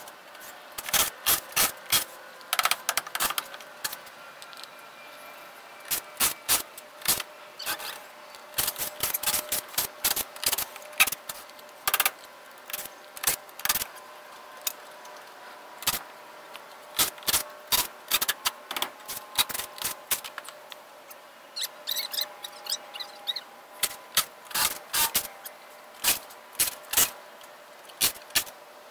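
Old screen mesh being pulled and torn loose from a wooden screen-room frame: a run of irregular sharp snaps and crackles, coming in clusters with short gaps between them.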